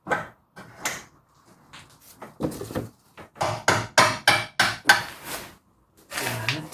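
Hammer blows knocking a part of the front suspension back into place while the drive shaft is refitted: a couple of single strikes, then a quick run of about seven strikes in the middle.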